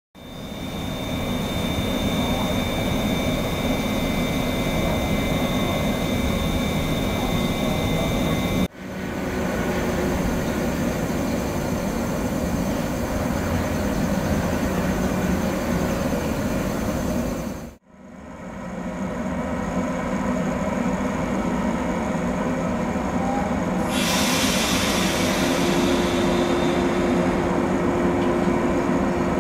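JR 115 series DC electric multiple unit running on the rails: steady train running noise in three short stretches, each cut off and faded back in, with a hiss joining about three quarters of the way through.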